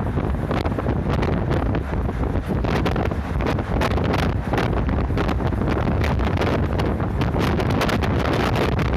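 Wind buffeting the microphone over the steady low rumble of a moving route bus.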